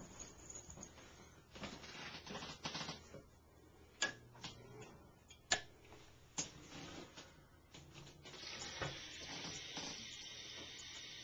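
A few sharp clicks and knocks, then a bathroom sink faucet is turned on about eight seconds in and a thin stream of tap water runs into the basin with a steady hiss.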